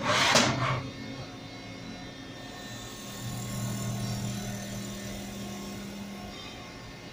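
CNC vertical milling machine running a fourth-axis job, giving a steady low hum. The hum grows louder about three seconds in and eases off after about six seconds as the end mill cuts a plastic part held on the rotary table. A loud burst of noise comes in the first second.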